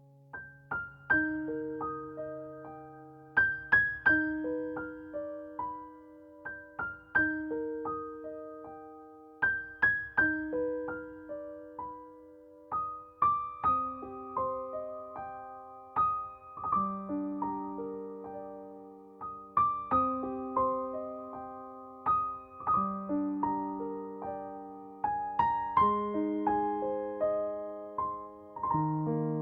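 Slow, gentle solo piano music: single notes struck one after another, each ringing out and fading.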